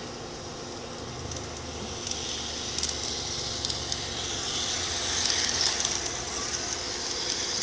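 1:20.3 scale model of the Galloping Goose railcar running along garden railway track: its motor and gearing whir steadily, and its wheels give scattered clicks at the rail joints. The whirring grows a little louder in the second half.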